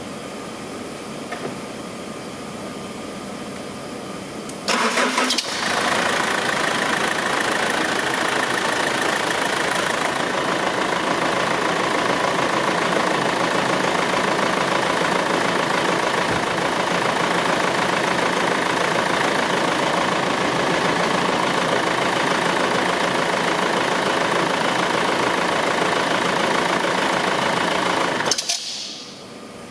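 BMW E46 320d's 2.0-litre four-cylinder diesel engine cranked by the starter about five seconds in, catching and idling steadily, then switched off near the end. It is run briefly on fresh oil just after an oil change, to circulate it before the level is checked.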